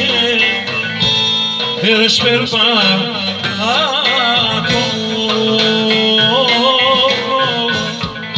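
Live band playing Greek folk dance music through a PA, with a singer's wavering, ornamented melody over electric guitar and drums.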